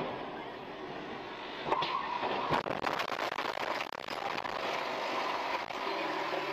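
Car collision heard from inside a dashcam car: a short squeal about two seconds in, then a sharp bang and a run of clattering knocks, with road noise after.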